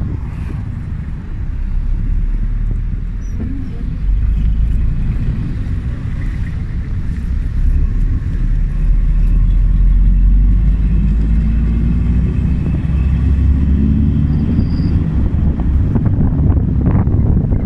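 Low engine and road rumble of a moving car, heard from inside the cabin; it grows louder about eight seconds in.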